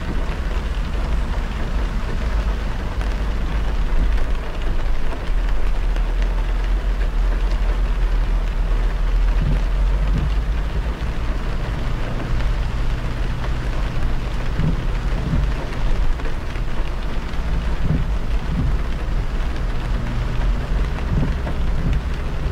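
A car driving on an expressway in the rain: a steady hiss of rain and wet-tyre spray over a deep, constant road rumble.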